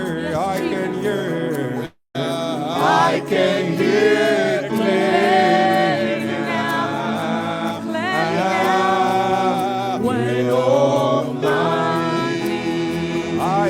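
Slow worship music: singing voices holding drawn-out melodic lines over sustained instrumental chords. All sound cuts out for a moment about two seconds in.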